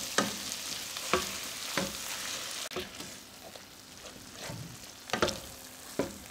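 Nylon potato masher mashing cauliflower in a hot nonstick pan: a few sharp knocks and squelches as it strikes the pan, fewer in the middle and several near the end, over a faint sizzle from the pan.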